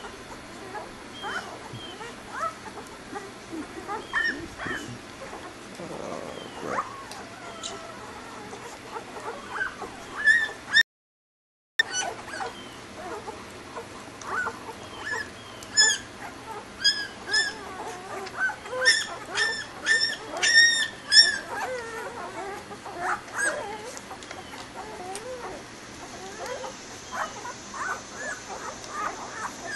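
Newborn German Shepherd puppies squeaking and whimpering while they nurse: many short, high-pitched cries, coming thick and fast for several seconds midway. The sound cuts out completely for about a second partway through.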